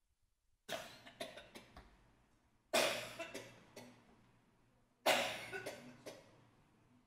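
A person coughing into a microphone in three fits about two seconds apart, each a burst of several quick coughs that dies away.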